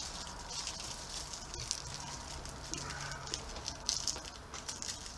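Thin plastic wrapper crinkling between the fingers as it is picked apart, in quick irregular crackles.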